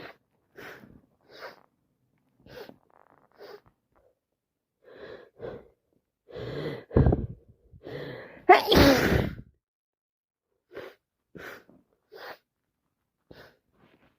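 A woman with a wet head cold sneezing: short sniffly breaths, a few quick gasping inhales building up, then one loud sneeze about eight and a half seconds in, followed by more short sniffles.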